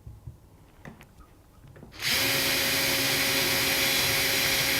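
A few faint handling clicks, then about two seconds in a power drill starts up and runs steadily at one pitch, boring the 54 millimetre knob hole through the door.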